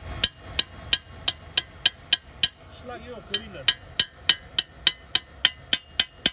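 A welder's chipping hammer taps along a fresh weld bead on steel, chipping off the slag. It makes a steady run of sharp metallic clicks, about three a second.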